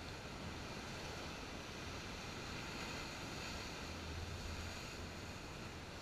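Sea waves breaking and washing over shore rocks: a steady rushing surf noise that swells a little in the middle. It is muffled by the camera's waterproof case.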